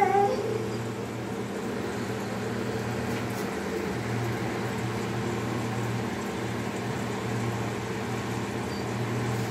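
A steady low machine hum with an even background hiss; the lowest tone drops out briefly a few seconds in.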